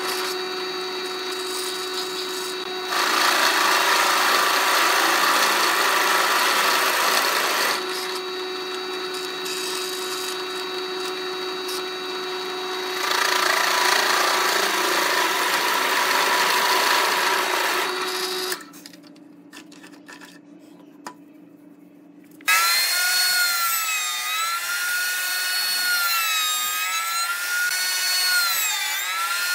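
Drill press running with a Forstner bit, boring into a wooden disc: a steady motor hum, louder with cutting noise twice as the bit is fed into the wood. After a quieter gap of a few seconds, a router in a router table takes over with a high whine that dips and rises in pitch as a curved wooden piece is fed past its bearing-guided bit.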